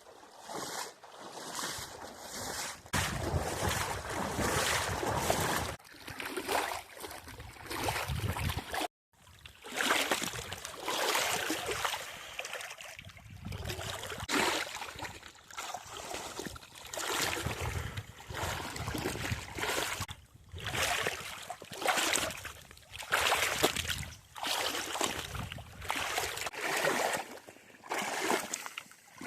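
Someone wading through a shallow brook in waders, the water sloshing and swishing around the legs with each stride, roughly once a second. The sound cuts out briefly about nine seconds in.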